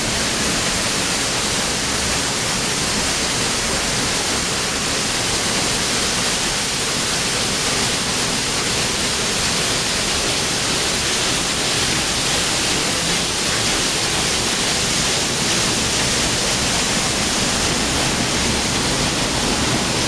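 Small forest waterfall pouring over rock into a stream, a steady close rush of falling water, heavy in the hiss.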